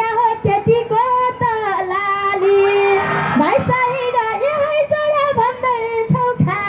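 A woman singing a Nepali dohori folk line into a handheld microphone, amplified, in a continuous melody with long held notes bending in pitch.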